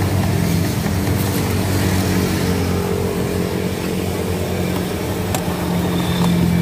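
A steady low engine hum, as of a motor vehicle running close by, with a couple of faint light clinks.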